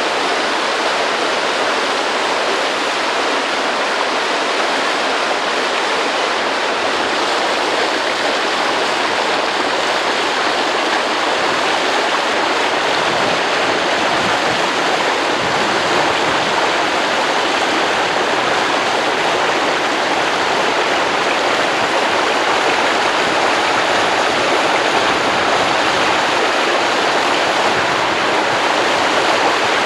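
Steady rushing of river water falling and flowing over rocks, an even unbroken wash of sound.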